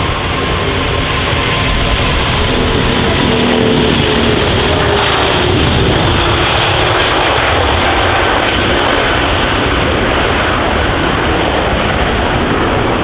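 Four-engine Airbus A380 jetliner at takeoff thrust, running loud and steady as it rolls down a wet runway and lifts off. Faint tones within the engine noise slide down in pitch over the first few seconds.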